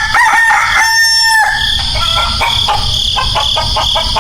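Rooster crowing: one long crow that ends about a second and a half in, followed by a run of short, rapid calls.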